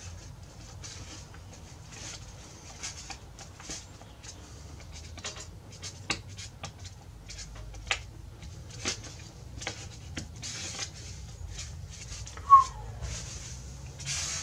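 Scattered light clicks, taps and scratches of wood being handled as a padauk rosette is pressed and test-fitted into its channel in a guitar top. There is one short, sharp squeak near the end.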